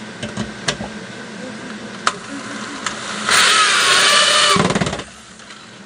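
A few light knocks, then a small handheld power tool motor runs for about a second and a half with a wavering whine and stops with a quick rattle.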